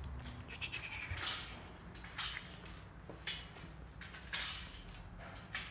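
Thin plastic food wrapper crinkling and rustling under a cat's nose and mouth, in short bursts about once a second.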